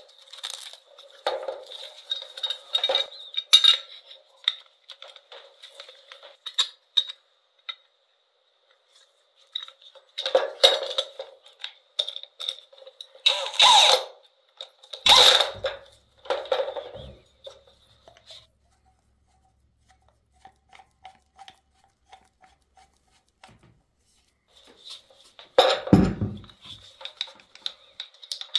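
Clicks, rattles and knocks of an angle grinder and its cord, guard and parts being handled on a metal tabletop, with a few louder clunks as tools are set down. Quiet for several seconds in the middle.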